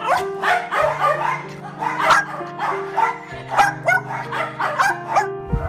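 Dogs barking and yipping in quick, repeated sharp barks, two or three a second, over background music with held notes.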